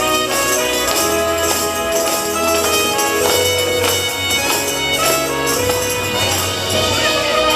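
Instrumental holiday music played live on keyboard and saxophone, with held melody notes over a moving bass line and a steady percussion beat.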